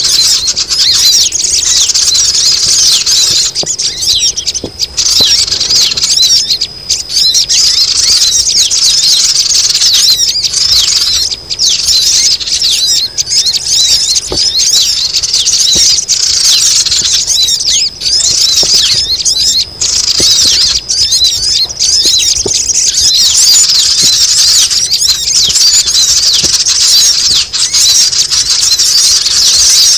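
A loud, dense chorus of many small sogon birds calling together, rapid overlapping high-pitched chirps and squeaks with no pause. A busy flock recording used as a lure call to draw wild sogon down.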